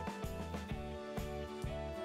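Background music with held notes over a steady beat of about two strikes a second.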